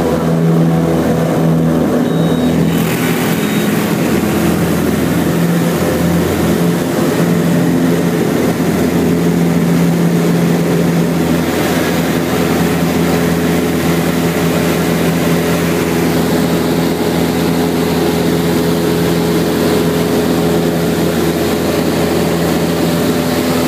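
American Champion Decathlon's four-cylinder engine and propeller running steadily, heard from inside the cockpit. A rushing airflow hiss grows stronger about three seconds in.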